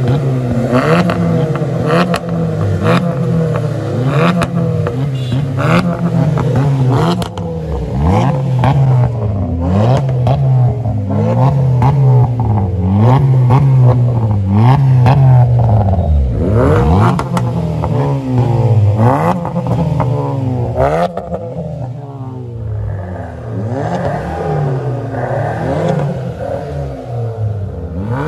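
Three cars with loud aftermarket exhausts revved together: a straight-piped Hyundai i20, a straight-piped diesel Ford Figo and a Honda City i-VTEC with a valvetronic exhaust. Their engine notes rise and fall over one another again and again, with frequent sharp cracks, and the revving grows quieter and duller in the last several seconds.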